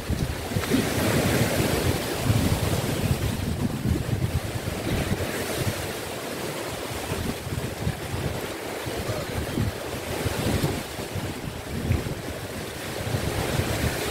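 Sea waves washing onto the shore, swelling and easing, with wind buffeting the microphone in gusts.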